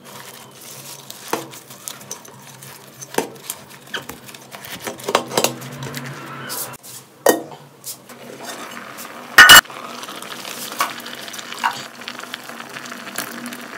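Banana leaves rustling and crinkling as they are pressed and folded into an aluminium cooking pot. Scattered light knocks against the pot run through it, and one loud sharp clatter comes about nine and a half seconds in.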